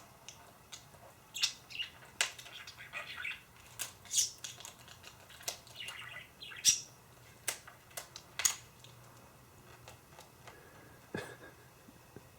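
Pet budgerigar (parakeet) giving short, sharp chirps and bits of warbling chatter, scattered irregularly, thinning out after about nine seconds.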